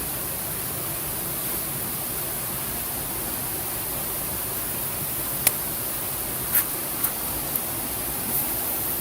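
Wood campfire crackling: a few sharp pops in the second half over a steady rushing hiss.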